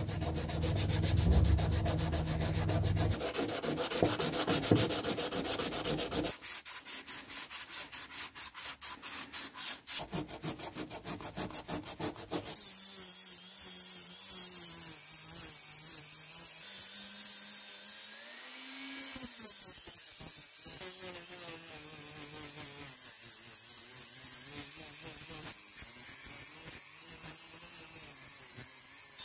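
Sandpaper rubbed by hand over an aluminium grinder housing in quick, even strokes. About twelve seconds in, a small handheld rotary tool with an abrasive wheel takes over, running with a steady whine over a hiss. Its pitch wavers as it works the metal, and it briefly drops out partway through.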